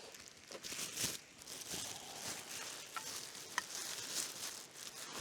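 Rustling and crinkling of packaging as items are handled and unwrapped, with a few light clicks and taps scattered through it.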